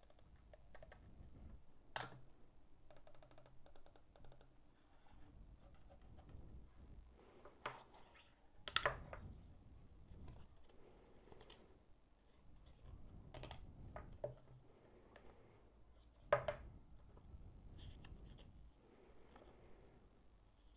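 Hands handling a mouse's cardboard packaging tray and paper instruction leaflet: soft rustling and scraping with a few sharp taps and clicks, the loudest about 9 and 16 seconds in, and a quick run of small ticks near the start.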